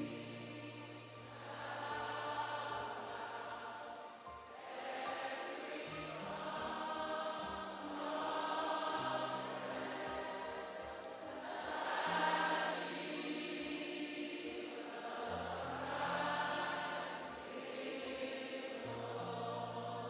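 Slow worship music: many voices singing a chorus in swelling phrases over sustained keyboard chords with long-held bass notes.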